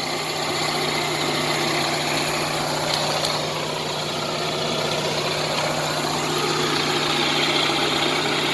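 Onan 5.5 kW RV generator engine running steadily with an even hum, after a new starter and fuel pump were fitted.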